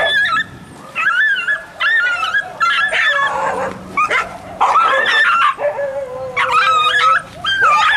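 Stray dog held in a dog-catcher's lasso noose, yelping and whining in distress: a string of short, high, wavering cries with one longer, lower steady note about six seconds in.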